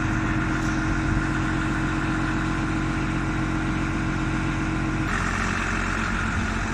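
Caterpillar DP150 diesel forklift engine running steadily, just after being started. About five seconds in its tone shifts: the lower hum drops back and a higher hiss comes up.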